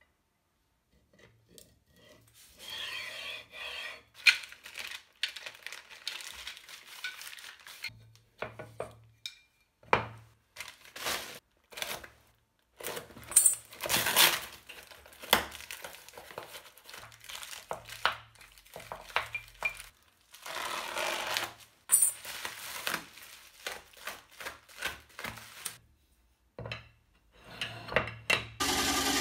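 Steel linear guide rails, bearing carriages and stepper motors being handled and set down on a plywood board: a string of metallic clinks and knocks, with a few stretches of rubbing and rustling as parts and taped parcels are moved.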